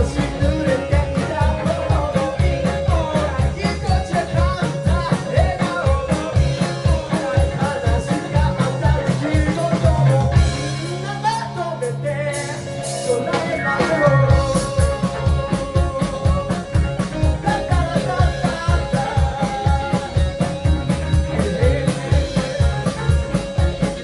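Live rock band playing with drum kit, guitar and singing, the drums keeping a steady fast beat. About ten seconds in the drums drop out for a few seconds over a held low note, then the band comes back in.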